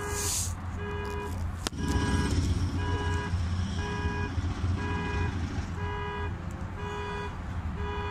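An electronic alarm beeping over and over, about once a second, each beep short and at a fixed pitch, over a steady low rumble. A single sharp knock comes a little under two seconds in.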